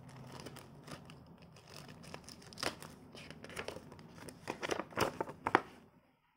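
A small clear plastic bag crinkling and a folded paper instruction sheet rustling as it is drawn out and unfolded, with a run of sharp crackles that grows loudest about five seconds in.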